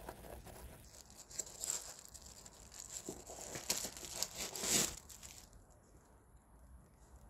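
Paper crinkling and rustling as a new sneaker and its paper stuffing are handled and turned over, with many small crackles. It grows louder, peaks just before it stops about five and a half seconds in, and then there is only faint background.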